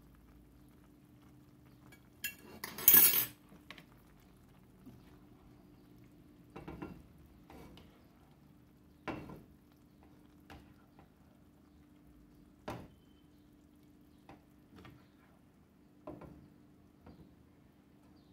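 Dishes-and-utensil sounds as a serving spoon scoops stewed liver from a frying pan onto a ceramic plate: a louder scraping clatter about two to three seconds in, then scattered single clinks and taps against the pan and plate. A faint steady hum runs underneath.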